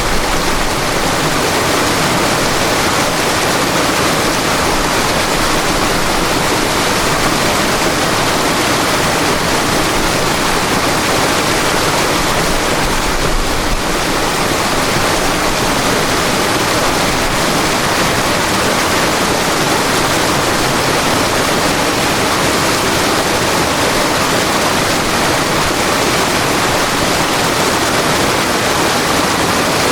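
River water rushing and splashing in a steady, loud, unbroken stream.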